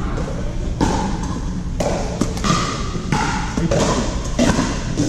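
Pickleball paddles hitting a plastic ball on nearby courts: a series of sharp pops at irregular intervals, each ringing briefly in the large hall, over a steady low rumble.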